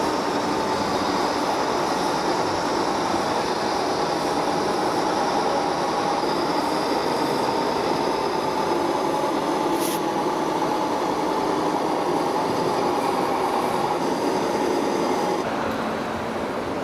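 Radio-controlled scale Kenworth truck model's electric drive and gearbox whining steadily as it drives, over a steady background noise. The whine stops shortly before the end.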